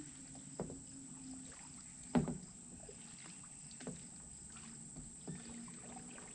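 A few light knocks and taps on a kayak, the loudest about two seconds in, over a faint steady background.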